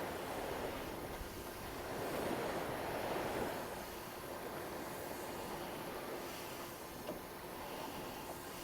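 Steady outdoor wind and water noise, swelling about two seconds in and then easing.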